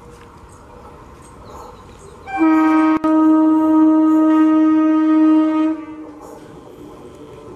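Horn of an approaching EMU electric local train: one steady blast of about three and a half seconds, starting a couple of seconds in and cutting off near the end. The train's low running rumble is heard faintly before and after it.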